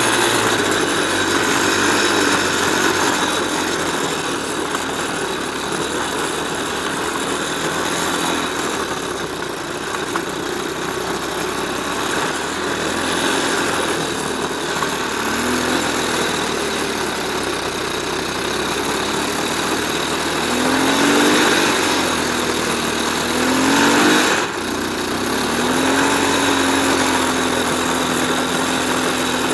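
Small off-road engine running while riding, under a rush of wind noise. From about two-thirds of the way through, the revs rise and fall a few times, then hold steady before picking up again at the end.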